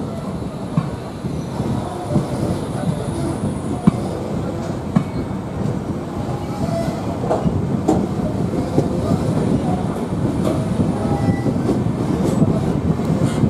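Two passenger trains running side by side, heard from the open door of one coach: steady rolling rumble of wheels on rail with clickety-clack over the joints, scattered clicks and a few faint brief wheel squeals. The noise grows slowly louder.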